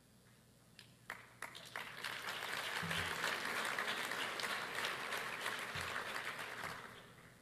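Audience applauding: a few scattered claps about a second in, swelling into steady applause that fades away near the end.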